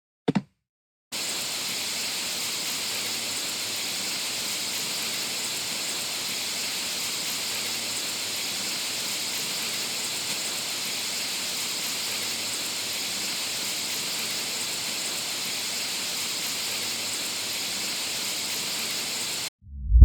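A steady, even hiss that starts abruptly about a second in and cuts off abruptly near the end, after a short tap at the very start.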